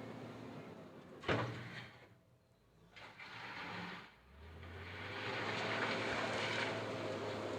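JCB 426ZX wheel loader working, with a single sharp clunk just over a second in. The noise drops away briefly, then the machine's steady hum and a rising rush build up again from about four seconds in.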